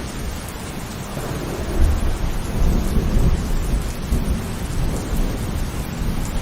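Rain falling steadily, with a low rumble of thunder that builds about a second and a half in and dies away over the next few seconds.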